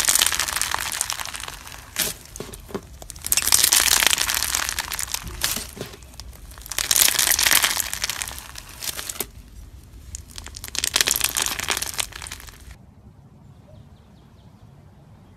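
Foam-bead slime (floam) squeezed and kneaded by hand, the beads crackling and popping in repeated waves every few seconds. The crackling cuts off abruptly about thirteen seconds in.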